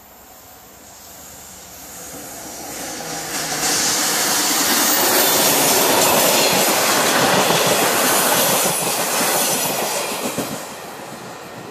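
V/Line passenger train passing close by at speed: the rush of its wheels on the rails builds over a few seconds, stays loud for about six seconds, then fades.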